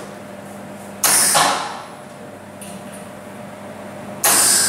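Two short tack welds with an electric arc welder on the steel legs of a grill stand, each a sudden burst of hiss under a second long, about three seconds apart. A low steady hum runs underneath.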